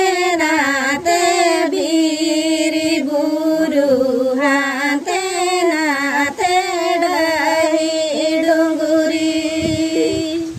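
Two women singing a Santhali folk song, a melody of long held, wavering notes; the singing fades out near the end.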